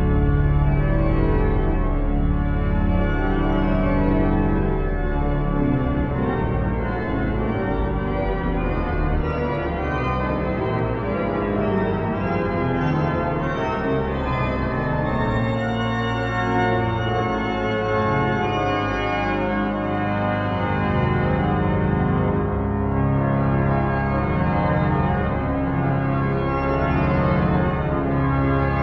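Newly refurbished sanctuary organ playing a piece in full sustained chords over deep bass notes, the harmonies shifting every second or two without a break.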